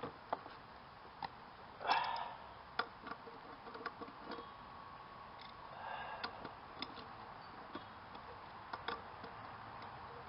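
Scattered metallic clicks from a wrench working the 5/8-inch bolt loose on a lawn mower blade, with two brief scraping sounds from the tool and blade, one about two seconds in and one about six seconds in.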